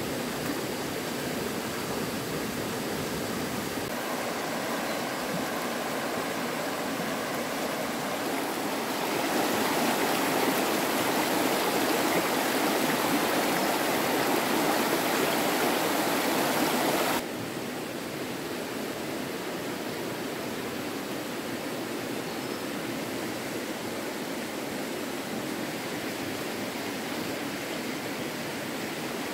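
Stream water rushing steadily. It grows louder about nine seconds in and drops back abruptly to a softer rush around seventeen seconds in.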